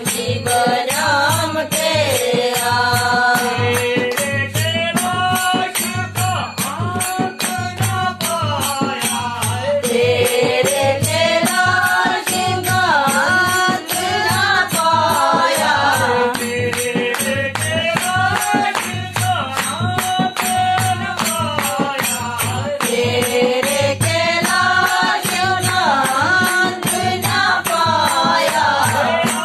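Voices singing a Shiv bhajan in Gaddi folk style, the melody rising and falling in repeating phrases, over a steady percussion beat.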